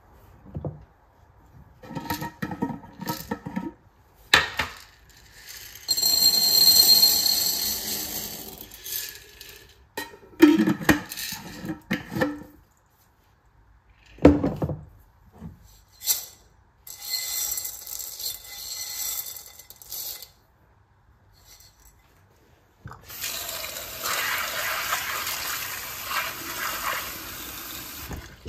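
Dried beans poured rattling out of a glass storage jar into a ceramic bowl, with clinks of the jar's metal lid. Near the end a kitchen tap runs steadily over the beans in a stainless steel sink as they are rinsed.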